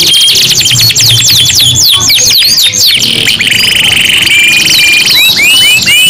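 Several domestic canaries singing loudly together in full song: fast trills and rapidly repeated sweeping notes high in pitch, a buzzy rolling trill through the middle, and a run of short rising whistles near the end.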